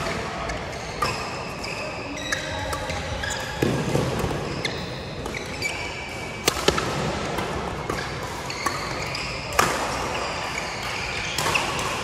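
Badminton play on a court: sharp racket strikes on the shuttlecock, a few seconds apart, among short high squeaks of shoes on the court floor.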